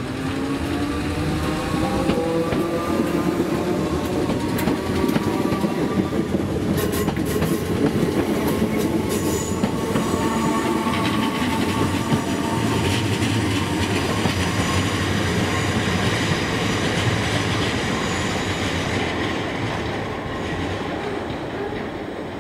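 Merseyrail Class 508 electric multiple unit accelerating past, its traction motors giving a whine that rises in pitch, with a run of sharp wheel clicks over rail joints about seven to nine seconds in. The sound fades as the train draws away near the end.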